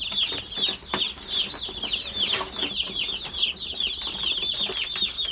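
A crowd of day-old Cornish cross broiler chicks peeping continuously, dozens of high chirps overlapping. A few soft knocks come through the peeping.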